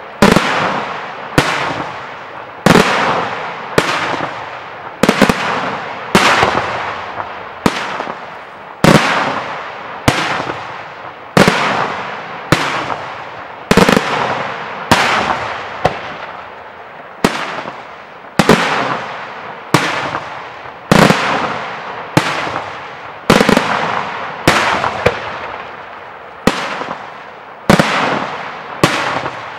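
Daytime aerial firework shells bursting in a steady series, a sharp bang about once a second, each fading off in a long echoing tail.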